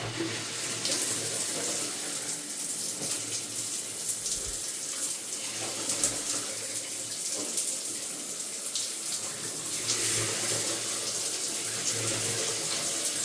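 Shower running: water sprays steadily from the shower head after the Price Pfister valve with its newly fitted cartridge is opened. The flow comes on right at the start, showing the new cartridge passing water.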